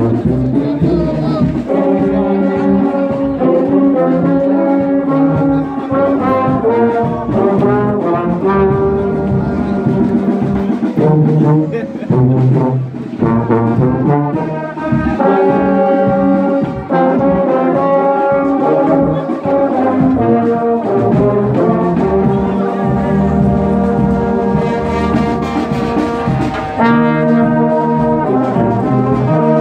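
A brass band playing in full harmony, tubas and euphoniums carrying the low parts, in held chords with short breaks between phrases.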